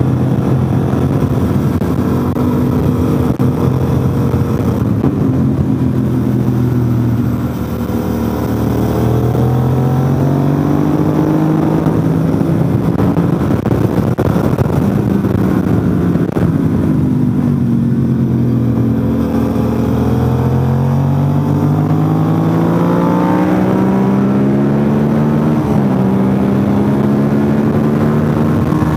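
Motorcycle engine at track speed, its pitch repeatedly climbing under throttle and falling away as the rider eases off, with a sudden step down near the end like a gear change. Steady wind noise rushes over the helmet-mounted microphone throughout.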